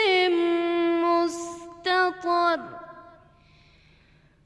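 A woman reciting the Quran in melodic tajwid style, closing the verse "wa kullu saghirin wa kabirin mustatar". She holds a long ornamented note, then a hissed "s" and two short notes, and the phrase falls away about two and a half seconds in. A pause follows.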